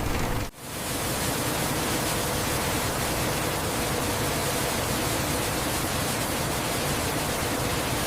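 A steady, even hiss, fading in after a brief dropout about half a second in.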